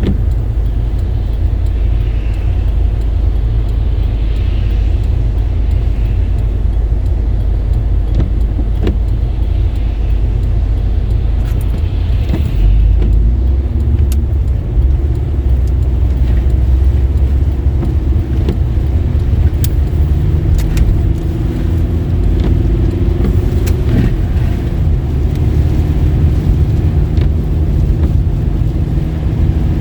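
A car being driven: a steady low rumble of engine and road noise. About halfway through, a clearer engine note comes in and shifts in pitch a few times as the car changes speed.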